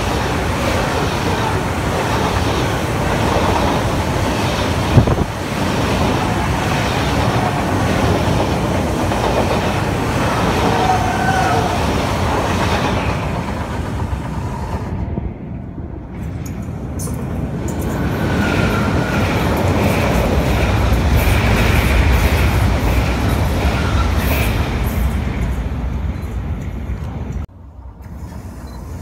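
An ICE high-speed train passing close by on a railway bridge: a steady rush of wheels on rails and coaches going by, with a single sharp click about five seconds in. The rush fades about 13 seconds in. From about 17 seconds a low rumble with a faint steady whine builds again as a class 430 S-Bahn electric train approaches, and it drops away abruptly near the end.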